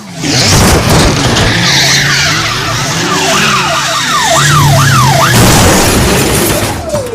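Loud intro sound effect of vehicle noise and tyre skidding, with a siren wailing rapidly up and down from about three to five seconds in.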